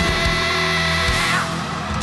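Hard rock band playing the loud close of a song, with the singer belting a held high note that slides down and breaks off about a second and a half in. The band carries on a little quieter, with a drum hit at the end.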